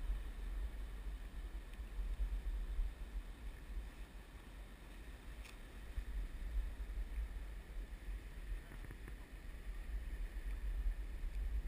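Low, uneven rumble of river water and wind on a body-worn action camera's microphone while wading a river, with one small click about five and a half seconds in.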